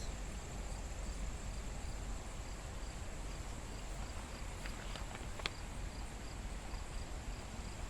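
Insects chirping steadily: a continuous high trill with a pulsed chirp repeating about two to three times a second, over a low outdoor rumble. A few faint clicks about five seconds in.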